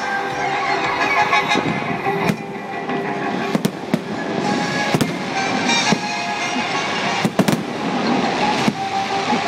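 Fireworks display: a string of sharp aerial shell bangs, about ten in all, some in quick doubles and triples, with music playing underneath.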